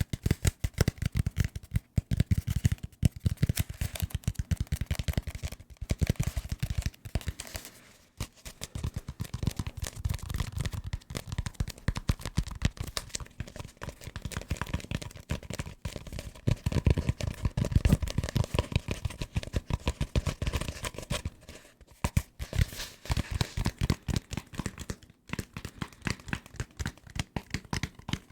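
Close-miked fingertips and nails tapping rapidly and hard on assorted desk objects, a fast, dense run of taps with a few brief pauses.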